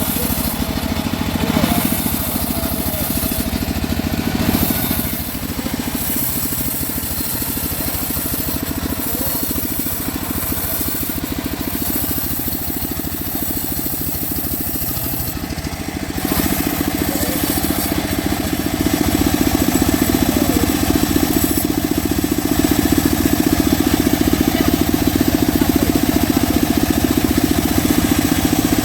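Homemade bandsaw sawmill running and cutting mahogany: a steady machine noise that grows louder about halfway through and stays up.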